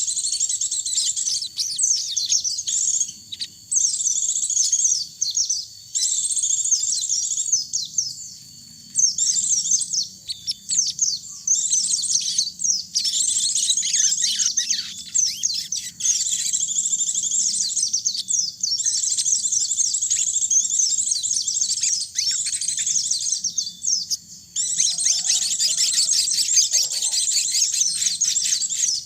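High, rapid twittering song of small songbirds, pleci (white-eyes) and sogon birds, in quick runs of chirps a second or two long with short breaks, becoming denser and unbroken for the last few seconds.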